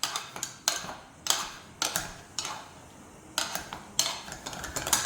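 Potato masher knocking against the bottom and sides of a pot while mashing drained sweet potatoes, about two sharp clanks a second.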